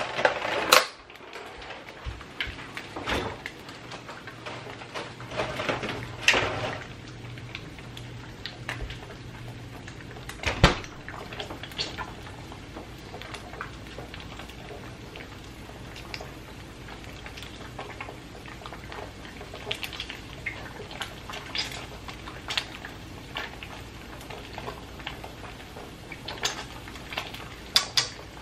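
Kitchen cooking sounds: scattered knocks and clatter of wooden chopsticks against a wok and pan, the loudest about ten seconds in, over a faint crackle of eggs frying in oil. A steady low hum runs underneath.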